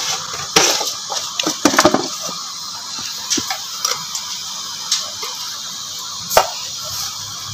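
Date and tamarind chutney simmering in a pan: scattered pops and clicks over a steady hiss, a cluster of them in the first two seconds and single ones now and then after that.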